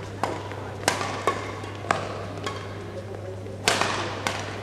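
Badminton rally: rackets striking the shuttlecock in sharp, echoing pops about every half second to second, with the hardest hit near the end. The hits ring out in a large, reverberant sports hall.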